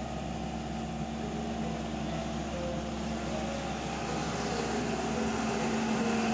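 Steady mechanical drone with a constant low hum, like a small motor running, growing slightly louder.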